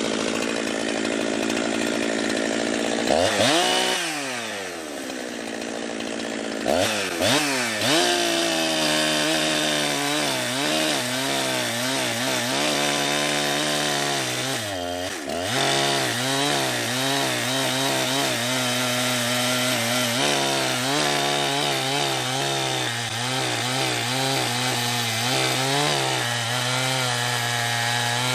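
Jonsered 2071 two-stroke chainsaw running at high revs, falling to idle about three seconds in, then revved up again near seven seconds and cutting into a large log, its engine speed wavering up and down under the load with a brief dip midway.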